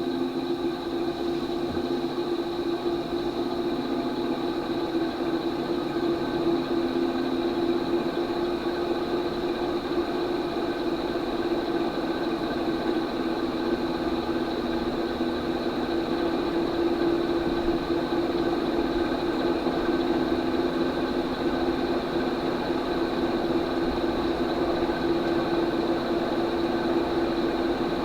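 SMC (Shell Electric Manufacturing) A52 ornate 52-inch ceiling fan running, its motor giving a steady hum with several fainter tones above it.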